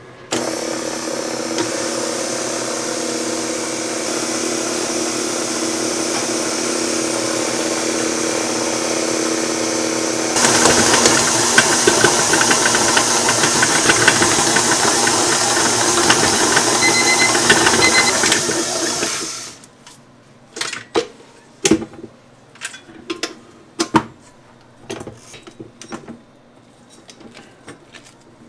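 KitchenAid stand mixers running steadily as they mix pink bagel dough in steel bowls; about ten seconds in the running grows louder and rougher, then it stops abruptly a little past halfway. After that come scattered light knocks and taps as the dough and beater are handled in the metal bowl.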